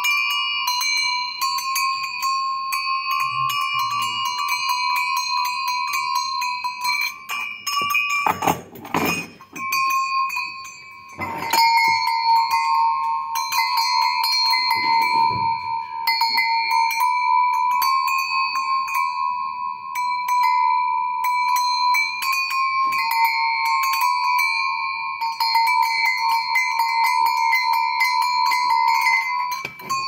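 Metal goat bells shaken by hand, their clappers striking rapidly in a continuous jangling ring. The ringing breaks with a couple of knocks around nine and eleven seconds in, then carries on at a slightly lower pitch.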